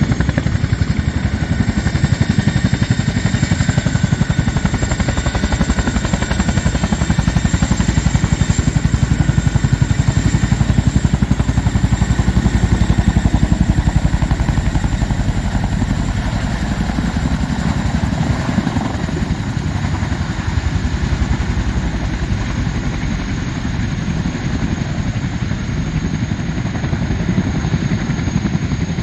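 Boeing CH-47 Chinook tandem-rotor helicopter hovering low and close, its twin turbine engines giving a steady high whine over the rapid beat of the rotor blades. It grows a little quieter in the second half as it moves off.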